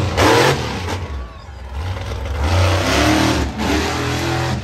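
Monster truck engine revving hard, its pitch rising and falling. It is loud at first, eases off about a second in, then climbs again for a couple of seconds before dropping near the end.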